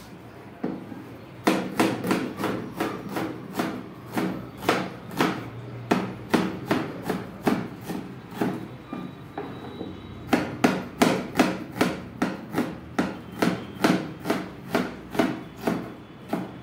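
A kitchen knife chopping a red onion on a cutting board, a steady run of sharp knocks of the blade on the board at about three a second, pausing briefly about halfway through and then starting again.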